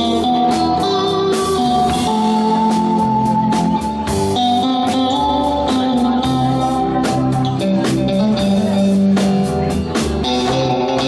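Live rock 'n' roll band playing an instrumental passage: electric guitar notes over bass and drums keeping a steady beat.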